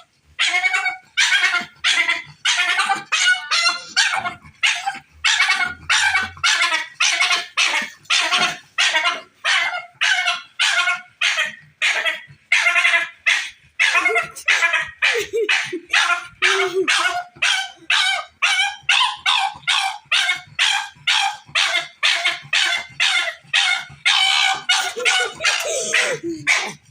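A dog barking over and over in high-pitched barks, about two a second with no break, stopping abruptly at the end.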